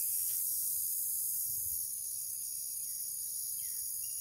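A steady, high-pitched chorus of insects buzzing and shrilling over faint outdoor background noise.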